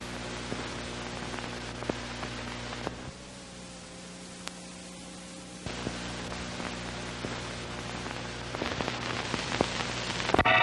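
Noise of a worn 1950s film soundtrack: steady hiss and crackle with a low hum and scattered clicks and pops. Near the end a loud sustained chord of music cuts in.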